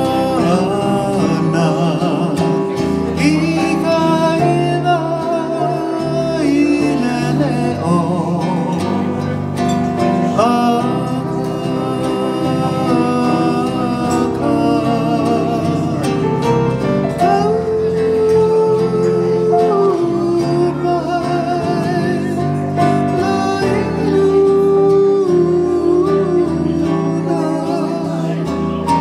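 Live music: a man singing a slow song with vibrato, accompanied by electronic keyboard and strummed acoustic guitar.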